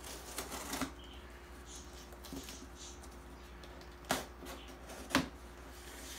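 Small knife slitting packing tape on a cardboard box, a short scratchy tearing in the first second, followed by light rustling of tape and cardboard and two sharp knocks about four and five seconds in as the box is handled.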